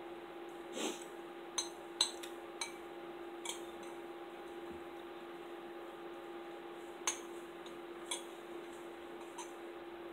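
Metal spoon clinking lightly against a ceramic bowl while soup beans are eaten from it: scattered short clinks, most in the first few seconds, over a steady low hum.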